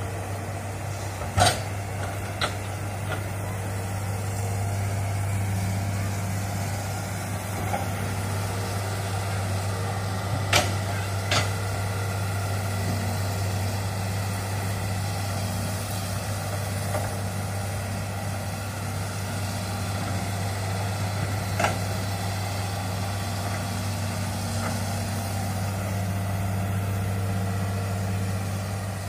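Crawler excavator's diesel engine running steadily under work, with a few sharp metallic clanks as it turns and moves.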